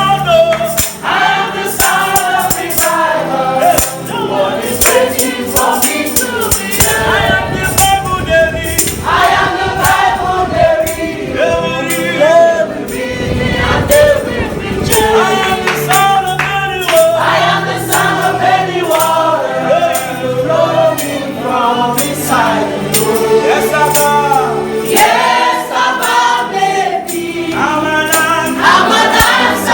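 Gospel worship song sung by a choir, with percussion keeping a steady beat.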